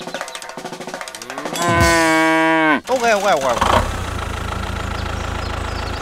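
Cow mooing sound effect: one long, loud moo starting about a second and a half in and dropping in pitch as it ends, then a shorter wavering moo. A steady low rumble follows from about halfway through.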